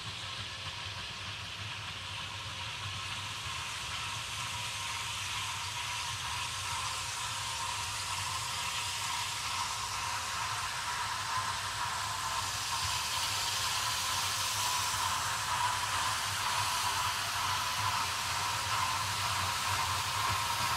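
Narrow-gauge steam locomotive drawing slowly closer, its steam hissing over a low rumble with a steady high hum, all growing gradually louder.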